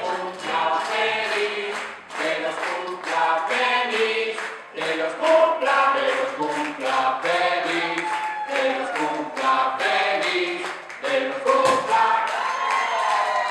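Several voices singing together over a steady, even beat.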